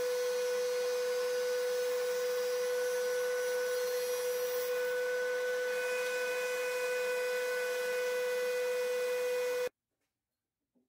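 Router-table router spinning at high speed, a steady high whine over a hiss, while a groove for the drawer bottom is cut in a maple drawer side. The sound stops abruptly near the end.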